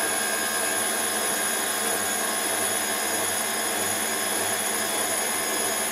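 KitchenAid stand mixer running steadily on speed 2, a motor whine over a steady whirr as its wire whisk beats egg whites and sugar into a creamy meringue.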